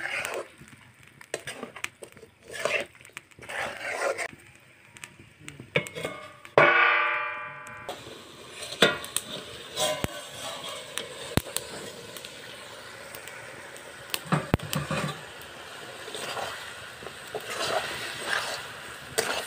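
A metal spatula scrapes and stirs chicken pieces frying in a steel wok. About six and a half seconds in, a metal lid lands on the wok with a loud ringing clang. Under the lid the pan keeps up a steady sizzle with sharp crackles, and the scraping and stirring start again near the end.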